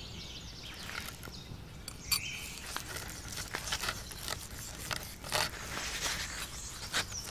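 Small kitchen knife cutting into the charred crust of a cooked tomahawk steak on a wooden cutting board: irregular crackling and scraping strokes. Birds chirp in the background.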